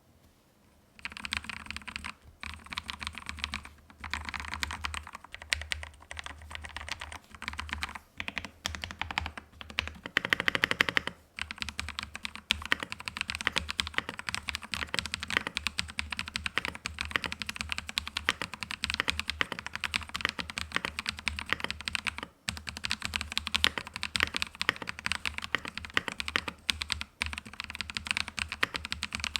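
Mechanical keyboard with hand-lubed Haimu Mint Lemon switches being typed on fast: a dense stream of keystroke clacks starting about a second in, broken by a few brief pauses, with a louder flurry about a third of the way through.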